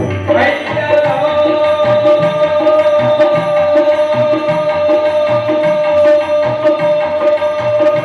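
Live music: hand drums keep a steady rhythm under one long held note that comes in about half a second in.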